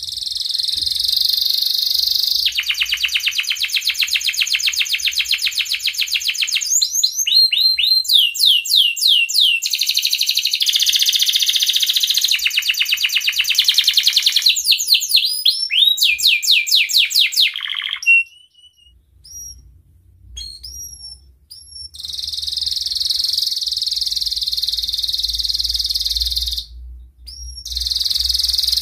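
Male domestic canary in breeding condition singing: long rapid rolling trills and runs of fast repeated rising chirps. About two-thirds through, the song breaks off for a few seconds with only a few single upswept chirps, then the trilling resumes.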